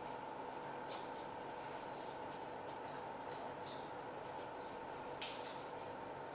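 Pencil scratching lightly on paper in sketching strokes, with a sharper stroke about five seconds in, over a steady faint hum.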